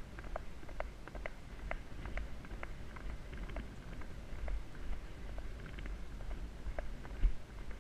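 Horse moving over firm sand, its hooves striking in a regular rhythm about twice a second, with a low wind rumble on the helmet-mounted GoPro's microphone. A louder knock comes near the end.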